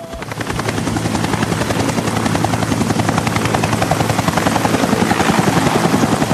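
Helicopter in flight: a rapid, steady chop of the rotor blades over a low engine drone, growing louder over the first second and then holding.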